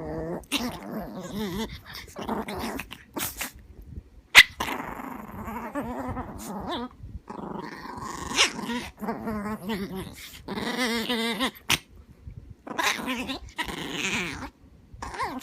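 Two small dogs, a toy poodle and a Shih Tzu–Yorkie mix, play-growling at each other in repeated bursts of wavering growls, with one sudden sharp sound about four seconds in.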